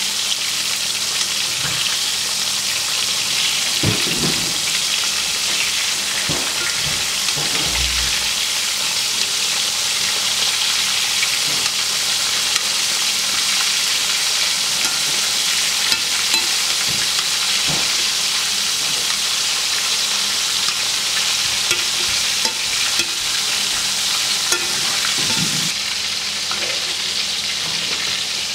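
Flour-dusted venison tenderloin slices sizzling in shallow vegetable oil in a cast-iron skillet, a steady loud hiss. A few light knocks sound as metal tongs turn the pieces.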